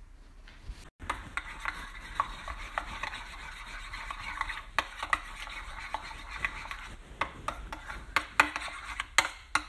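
Metal spoon stirring a thick mayonnaise and condensed-milk dressing in a bowl: steady wet scraping with many light clicks of the spoon against the bowl, starting about a second in.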